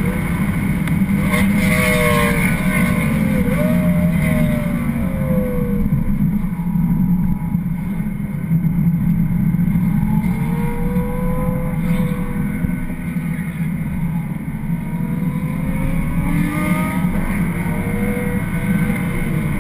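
BMW 335xi's twin-turbocharged straight-six running hard on track, heard from inside the cabin over heavy road and tyre rumble. The engine note climbs and drops several times as the driver accelerates, lifts and brakes through the corners, and goes mostly quiet under the road noise in the middle.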